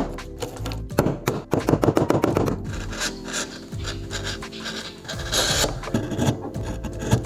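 A tool rasping and rubbing against wood, over background music.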